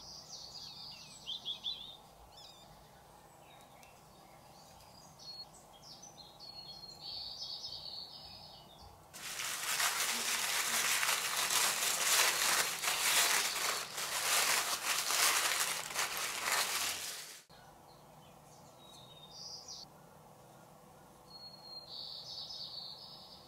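White tissue packing paper crinkling and rustling as it is crumpled and pulled apart by hand, for about eight seconds in the middle, then cutting off suddenly. Faint bird chirps come before and after it.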